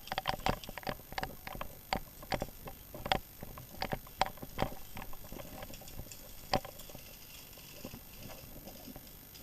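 Footsteps moving forward over rough ground: a run of irregular sharp steps, about two a second, thinning out after about five seconds.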